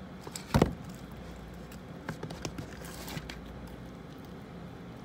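Plastic tub and slime being handled: one sharp knock about half a second in, then a few soft taps and clicks.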